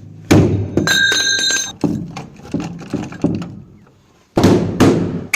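Hammer blows on a metal door lock: a series of hard knocks, one of them leaving a bell-like metallic ring for about a second, then a short pause and two more blows near the end.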